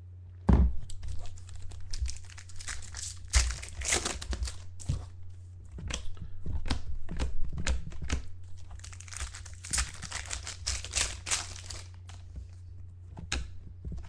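Card-pack wrappers crinkling and tearing as Finest football trading card packs are ripped open, dense irregular crackling with short rasps, over a steady low electrical hum.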